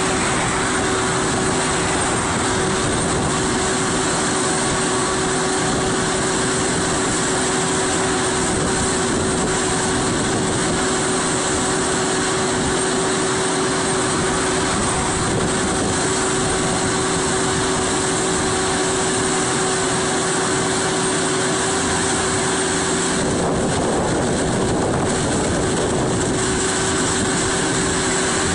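Vermeer Navigator horizontal directional drilling rig running: its diesel engine and hydraulics make a steady, loud drone with a constant whining tone through it.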